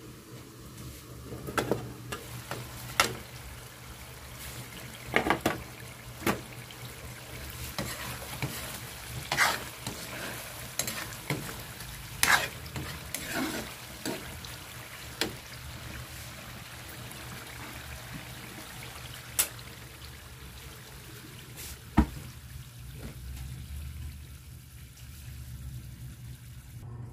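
Metal ladle stirring in a steel wok of chicken giblets simmering in sauce, clinking and scraping sharply against the pan about ten times, over the steady sizzle of the bubbling sauce.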